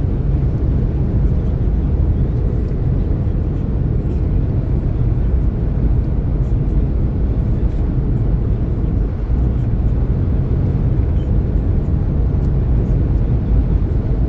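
Car driving at freeway speed, heard from inside the cabin: a steady low rumble of road and wind noise.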